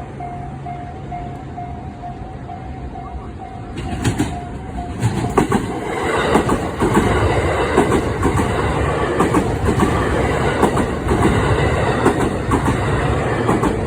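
Level-crossing alarm bell ringing in a steady repeating tone, then from about four seconds in a train runs over the crossing, its wheels clattering over the rail joints.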